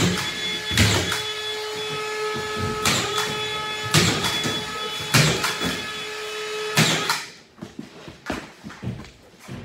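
Collated drywall screw gun running steadily with a motor whine, giving a sharp clack each time a screw is driven into the ceiling drywall, about six times. The motor stops about seven seconds in, followed by a few lighter knocks.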